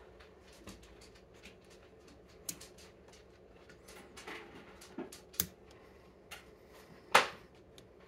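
Small metallic clicks and scrapes as pliers grip and work at a lock cylinder's cap strip, with a few sharper ticks and one louder click about seven seconds in.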